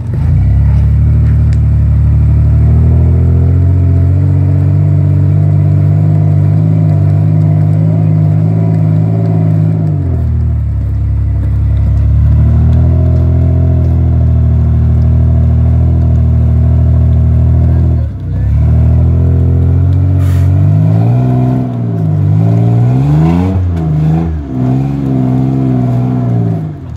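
Toyota 4Runner's engine pulling under load as the truck crawls up a rock ledge. The revs hold steady, dip briefly twice, then rise and fall several times near the end.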